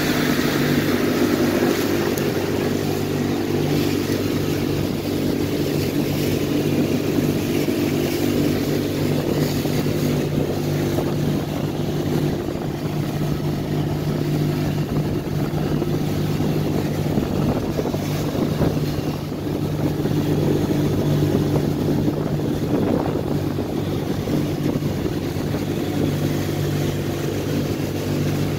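Boat's outboard motor running at a steady speed underway, with a hiss of water and wind over it.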